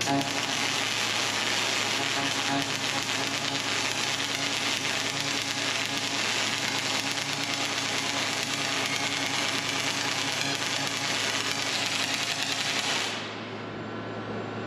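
Robotic MIG welding torch laying a weaving weld on a steel frame: the arc's steady crackle, cutting off about thirteen seconds in.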